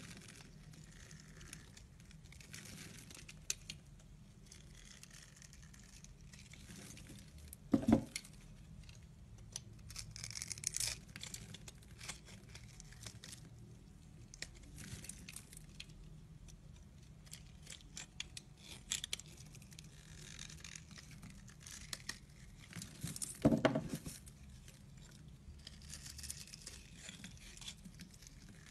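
Snap-off utility knife blade cutting into a bar of soap: repeated small crackling scrapes and clicks as cubes and flakes break off. Two louder knocks stand out, about a third of the way through and again near the end.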